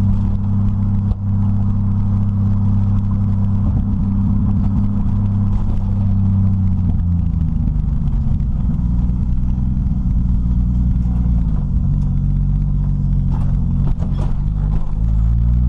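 Turbocharged Toyota 1JZ straight-six in a 1936 Morris 8, heard from inside the cabin while driving. The engine note holds steady at first, falls away about halfway through as the car slows, then rises again near the end as it accelerates, with a few short clicks just before.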